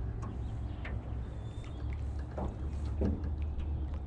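Steady low rumble of a fishing boat on the water, with scattered faint ticks and small splashes.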